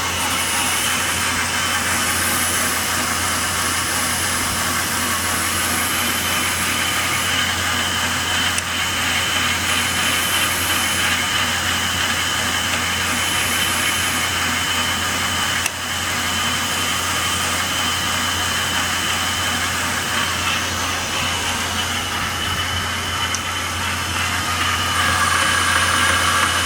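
Electric grinder or sander fitted with a 220-grit abrasive, running steadily with a constant motor hum and a dense grinding hiss as a knife spring is ground down toward the liner.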